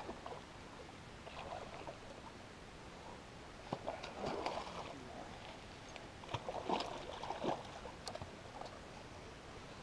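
Water splashing and sloshing in short irregular spells, with a few light knocks; the spells are strongest about four and seven seconds in.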